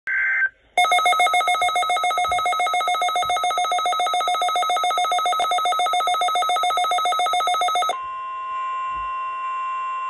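Midland weather alert radio sounding for a NOAA Required Weekly Test. A brief data-burst tone comes first, then a rapid pulsing beep lasting about seven seconds. From about eight seconds in, the steady NOAA warning alarm tone plays through the radio's speaker.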